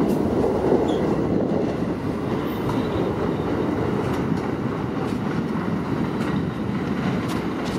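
St. Louis R44 Staten Island Railway cars running along the track: a steady noise of steel wheels on rail, with a few faint clicks.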